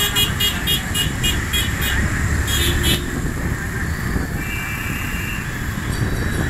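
City bus engine and road noise running steadily in traffic. For the first two seconds there is a rapid run of short high beeps, about four a second, and a horn sounds for about a second midway through.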